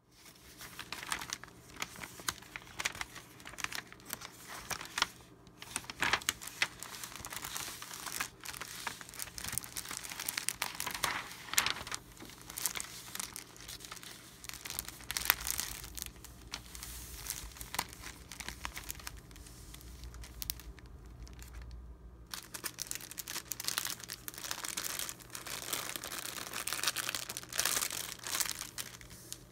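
Crinkling and rustling of a Priority Mail mailing envelope and a clear plastic bag of old paper documents being slid out and handled, a dense run of small crackles with a brief lull about three-quarters of the way through.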